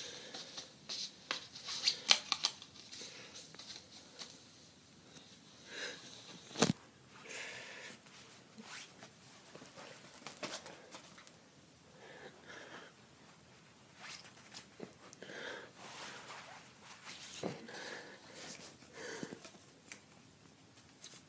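A cat rolling and pawing on a synthetic bedspread and batting at a card: soft fabric rustles and scratches with scattered light clicks, and a sharper tap about six and a half seconds in.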